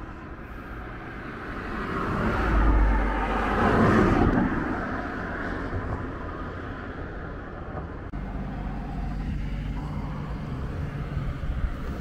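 Road traffic: a motor vehicle passes close by, its rumble swelling to a peak about three to four seconds in and then fading, followed by a steadier engine hum.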